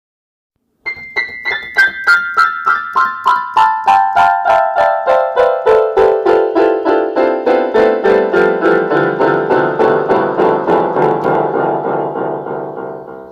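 Piano playing single notes in a steady descending run, about four notes a second, from high in the treble down into the bass. The notes ring on and blend together, then the sound cuts off at the end.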